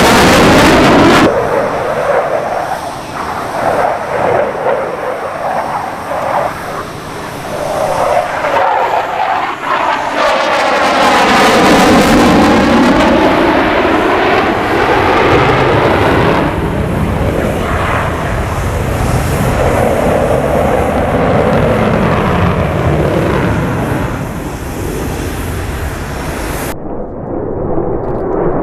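Fighter jet engines in a string of low flybys, a loud rushing jet noise that is cut abruptly several times between passes. In the middle of the clip the noise takes on a sweeping, phasing sound as a jet passes close by.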